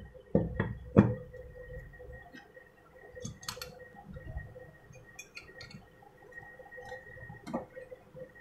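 Parts of an opened clothes iron being handled and set down on a wooden bench during reassembly: three sharp knocks in the first second, then scattered light metallic clicks and clinks, and another knock near the end.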